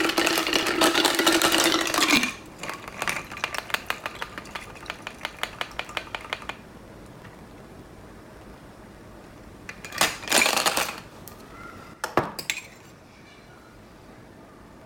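Ice and glassware clinking while a cocktail is mixed. A dense loud rush comes first, then a quick run of light clinks that fade away, and a short clatter and two sharp clicks later on.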